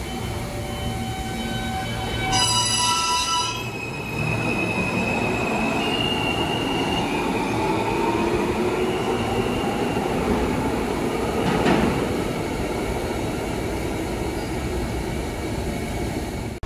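New York City subway train pulling out of an underground station. A short chime sounds about two seconds in, then the motors whine, rising in pitch as the train accelerates away down the tunnel. There is a single clank near the end.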